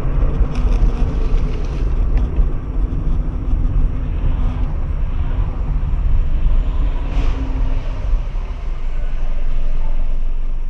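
Steady low road and engine rumble of a car driving along a highway, heard from inside the cabin through a dashcam microphone.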